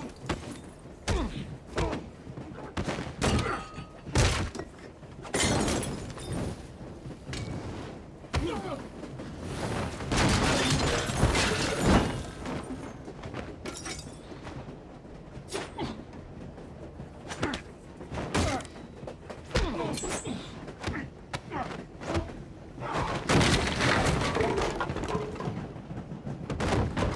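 Movie fight sound: a long run of irregular heavy thuds, punches and crashes as bodies are slammed against wooden panelling and fittings, with glass shattering and grunts between the blows.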